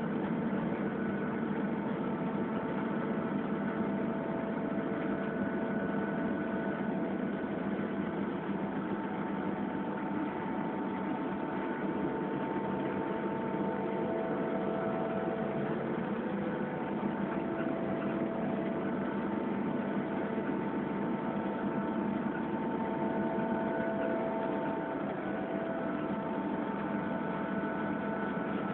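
TEP70 diesel locomotive running steadily, heard from inside the driver's cab: an even engine drone with several faint whining tones that come and go.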